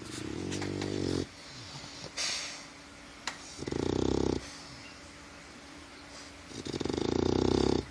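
Bulldog puppy snoring in her sleep: three buzzing snores of about a second each, a few seconds apart, with a softer breathy exhale between the first two.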